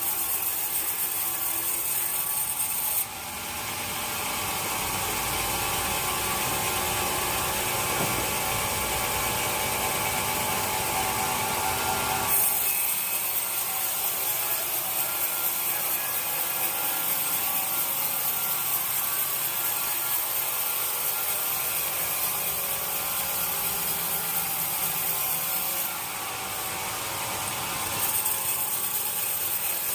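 Sawmill saw cutting through wood, a steady hissing rasp whose tone changes abruptly a few times.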